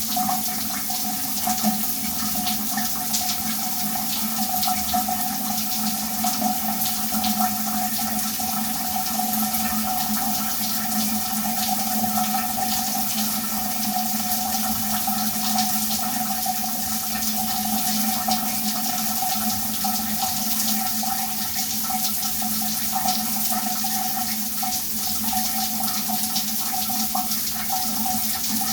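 Shower water running steadily, a spray hiss with fine spatter and a steady low resonant hum beneath it.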